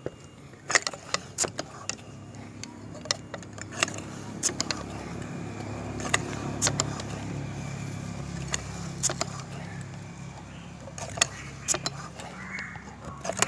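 Sharp clicks and clacks of a Sharp Tiger pump-action air rifle being handled and its pump lever worked, a dozen or so knocks at irregular spacing. A vehicle passes in the background, its low hum swelling towards the middle and fading again.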